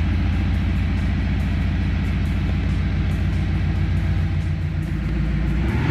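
Volkswagen Amarok 3.0 V6 TDI diesel idling steadily, heard at the rear bumper with the retrofitted Sound Booster active-exhaust actuator adding a synthesized exhaust note. The note is an even, rhythmic low drone.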